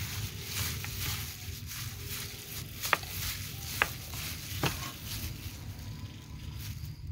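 Plastic-gloved hand tossing and squeezing a frog salad of shredded boiled frog and lemongrass on an aluminium tray: uneven wet rustling and squishing. Three sharp clicks come a little under a second apart near the middle.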